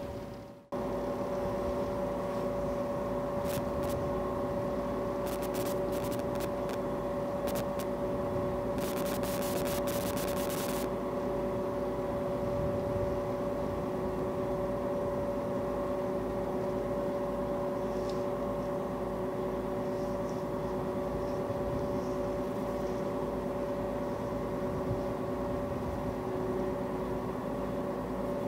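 A large wire car ferry's machinery running with a steady hum of several constant tones over a low rumble. It drops out briefly just under a second in, and faint clicking and rattling comes in a cluster a few seconds later.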